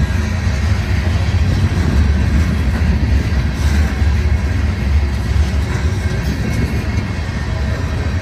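Freight cars of a Union Pacific manifest train rolling past, their wheels on the rails making a steady, deep rumble with faint clicks.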